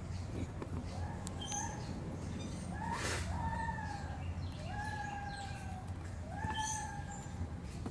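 A series of about four animal calls, each a whistled note that rises sharply, then holds level for most of a second, with faint high chirps between them over a low steady hum.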